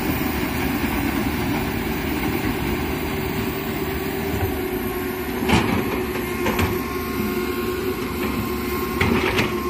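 Komatsu PC195 excavator's diesel engine running steadily as the machine works. A few sharp clanks cut through it about five and a half seconds in, again a second later, and twice near the end.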